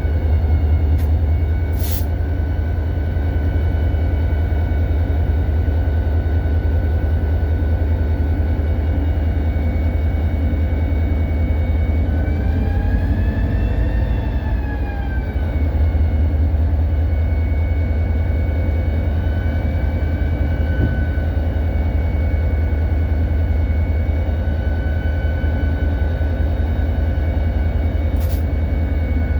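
EMD SD40-2 locomotive's 16-cylinder two-stroke diesel running under load, heard from inside the cab as a loud, steady low rumble. A whine above it rises and falls about halfway through. A couple of sharp clicks come about two seconds in.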